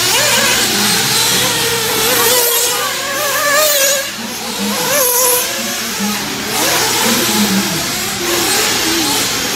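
Radio-controlled off-road race cars running on a dirt track, their motors changing pitch up and down as they speed up and slow down through the course.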